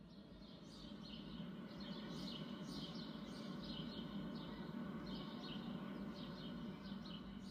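Small birds chirping, with quick, high, downward-sliding notes repeated in clusters over a steady low hum.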